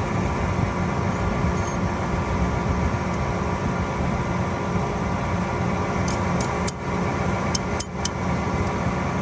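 John Deere 7R 310 tractor's diesel engine running steadily at idle close by, with a few light clicks between about six and eight seconds in.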